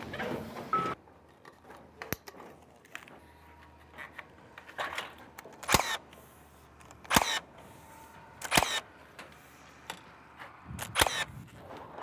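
Scattered sharp clicks and knocks, about half a dozen with quiet between them, with a few short raspy scrapes, from steel roofing panels and tools being handled and set in place on a metal roof.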